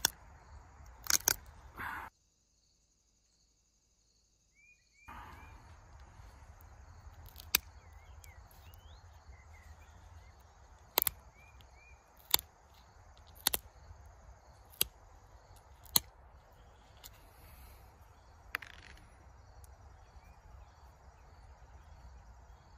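Pressure flaking flint with a caribou-antler-tipped flaker: small flakes snap off the edge of the point one at a time, each a sharp click, about ten in all, irregularly spaced and often a second or so apart. Faint bird chirps behind, and the sound drops out completely for about three seconds near the start.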